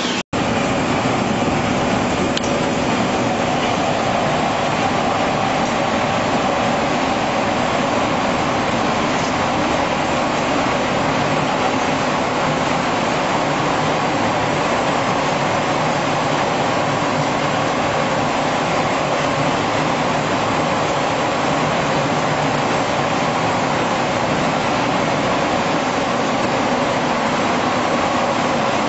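Poultry processing-line machinery running: a steady mechanical hum and rumble with a few faint steady tones underneath, starting after a momentary break near the beginning.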